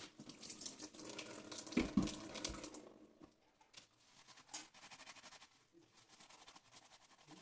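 Tap water running into a stainless steel sink over a metal gas-stove grate, with a loud clank of the grate against the sink just before two seconds in. The running water stops about three seconds in, leaving faint splashes and drips as a sponge is scrubbed and squeezed out.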